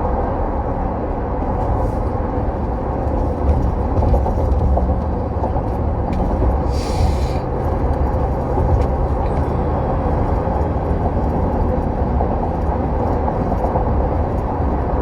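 Steady low rumble of a moving vehicle, heard from inside it, with a brief hiss about seven seconds in.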